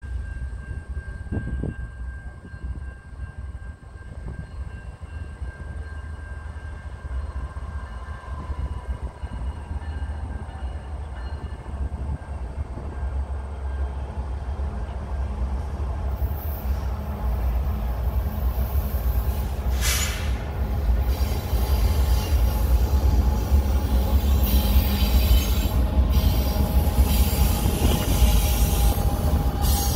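Canadian National freight train approaching behind two GE diesel locomotives, an ES44DC and an ET44AC. Their engines and wheels make a low rumble that grows steadily louder as the train nears. It turns harsher and louder as the lead units pass close near the end.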